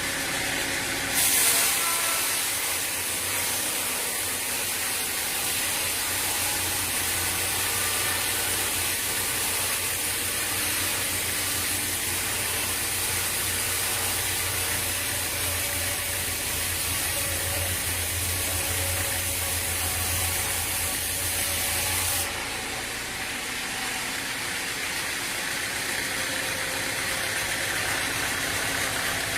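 Sawmill machinery running. A loud, steady hiss with a low hum under it starts about a second in and stops suddenly about three-quarters of the way through, leaving the machine's running noise.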